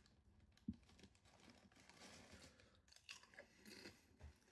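Faint chewing of hand-cooked potato crisps with the mouth closed, with one short crunch under a second in and a few softer crunches later.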